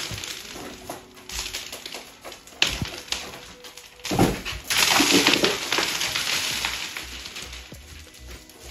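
Fibreboard ceiling sheets being pried and ripped off wooden ceiling boards with a metal bar: sharp cracks, then a long loud stretch of tearing and scraping from about halfway through that slowly dies down.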